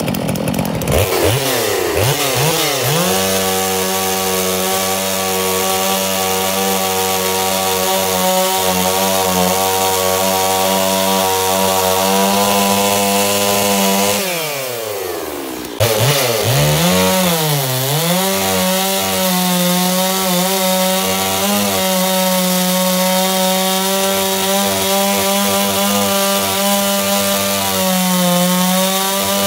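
Large two-stroke chainsaw cutting through wooden boards at high throttle. Its pitch swings up and down over the first few seconds before settling into a steady cut; about halfway through the engine's pitch sinks and it quietens for a second or two, then it jumps back to full speed, wavers briefly, and cuts steadily again.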